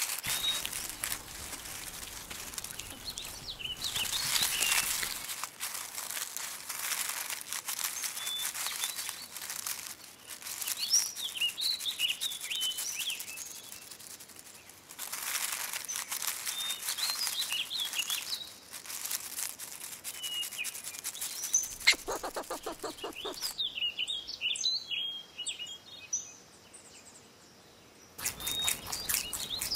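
Small birds chirping in short, scattered calls over a dense, crackling rustle.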